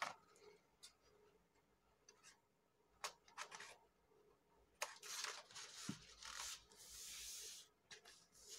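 Scissors snipping through a paper blouse pattern, a few sharp snips about three seconds in, then paper rustling and sliding as the cut sheets are handled and smoothed flat. All of it is faint.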